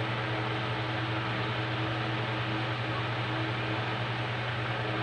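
Steady low electrical hum with an even hiss underneath, like a fan or motor running; no knocks or clicks stand out.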